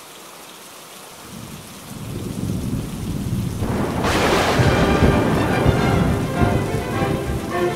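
Steady rain with thunder rumbling in low, then a loud peal of thunder about four seconds in that keeps rolling.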